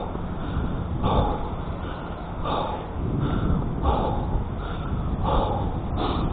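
A person breathing hard in quick, regular breaths, one about every 0.7 seconds, while climbing a steep sand dune on foot. Wind rumbles steadily on the microphone underneath.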